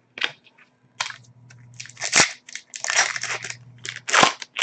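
Foil trading-card pack wrapper crinkling and rustling as it is handled and opened: a run of irregular crackly rustles, with two louder bursts about two and four seconds in.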